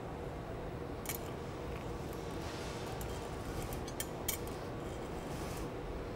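Glassblower's jacks and blowpipe giving a few light metallic ticks and scrapes against the hot glass, about a second in and again around three to four seconds in, over the steady low rumble of the hot shop's furnaces.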